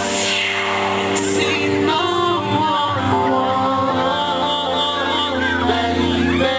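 A song playing: a sung melody over instrumental backing.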